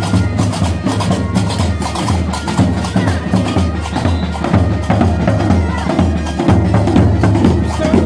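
Moroccan qraqeb (iron castanets) clacking in a fast, dense rhythm over a steady pulsing beat of large double-headed drums struck with sticks: street percussion music.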